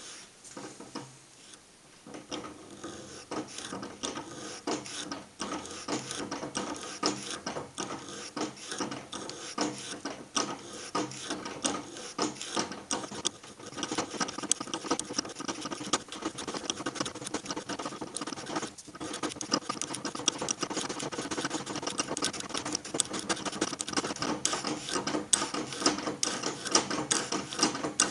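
Milling machine taking a cut in aluminium with a single-point cutter: a dense, rapid crackling rattle over the faint whine of the spindle drive. It starts about two seconds in and grows louder about halfway through.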